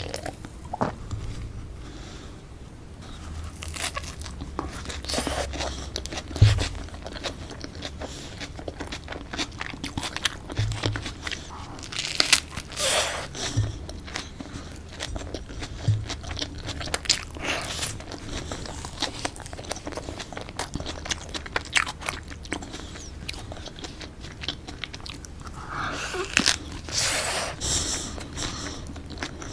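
Close-miked eating: crunchy bites and chewing of a tortilla-wrapped chicken wrap, in irregular crackly bursts, with a few soft low knocks.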